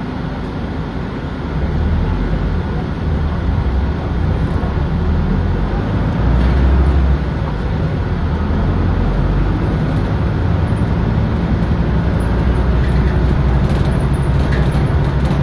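Running sound inside a 2007 Nissan Diesel Space Runner RP city bus as it drives along: a steady diesel engine rumble with road noise. It gets louder about two seconds in as the bus picks up.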